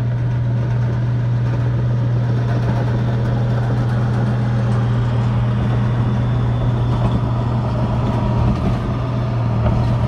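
Bulldozer engine running steadily under load, a constant low hum with no breaks.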